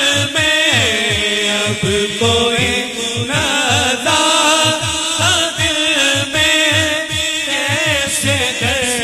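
A man singing an Urdu naat into a microphone over a sound system, drawing out long ornamented notes that bend and slide, over a steady low beat.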